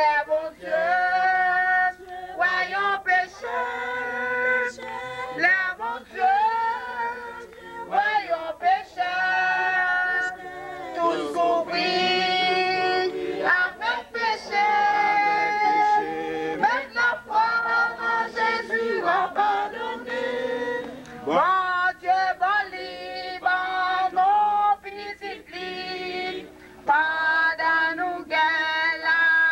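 A church group singing a hymn together, women's and men's voices in chorus, with long held notes.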